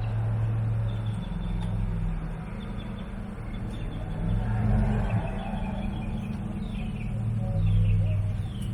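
Old Jeep's engine running at low revs. Birds chirp from about the middle onwards.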